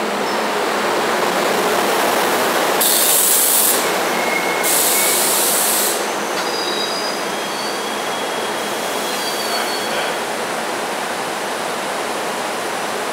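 SEPTA Silverliner IV electric commuter cars rolling slowly along the platform as the train pulls into the station, with a steady rumble of wheels on rail. Two loud bursts of hiss come a few seconds in, and thin, high squeals sound on and off through the middle.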